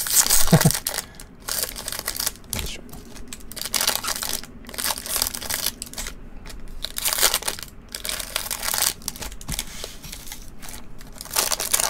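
Plastic-foil wrappers of 2024 Bowman Jumbo baseball card packs crinkling and rustling in irregular bursts as the packs are handled, stacked and opened.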